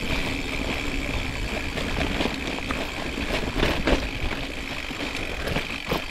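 Gravel bike rolling downhill over a loose, stony track: tyres rumbling and crunching over the stones and the bike rattling from the shaking, with a few sharper knocks about three and a half to four seconds in.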